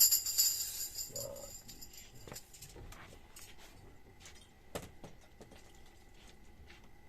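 Small metal percussion jingles shaken once and ringing out, fading over about a second and a half, followed by a few faint clicks and taps as instruments are handled.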